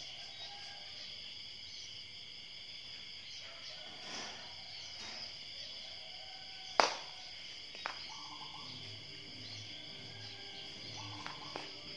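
Steady high-pitched insect chorus droning in the background, with two sharp knocks about seven and eight seconds in, the first much louder.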